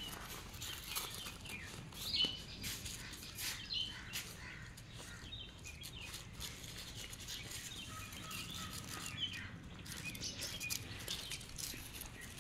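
Several puppies chewing and lapping food from small steel plates, with frequent small clicks and clinks from the plates on the tile floor. Short high chirps come and go over it.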